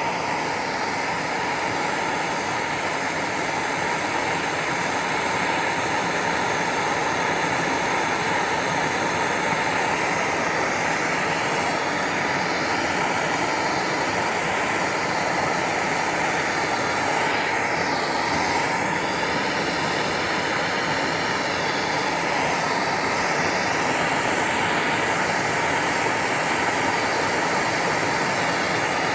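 Handheld plumbing torch burning with a steady hiss, heating a copper pipe joint so the solder will flow into it as it is sweated.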